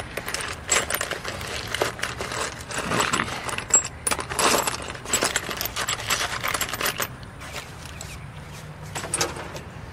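Loose metal hardware (nuts, washers and small tools) clinking and rattling as a hand rummages through a paper bowl of parts. The clinking is busiest for about the first seven seconds, then thins to a few clicks.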